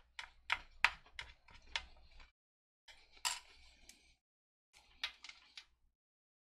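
MRE packaging being handled, plastic and foil crinkling. There is a quick run of sharp crackling clicks, then a rustle about three seconds in and a few more crackles near five seconds.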